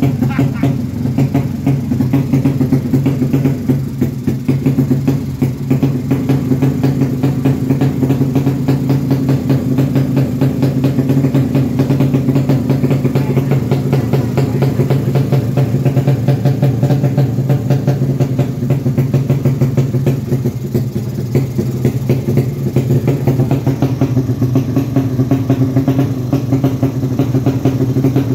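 200cc engine-swapped small motorcycle running at a steady idle, its exhaust pulsing evenly with no revving.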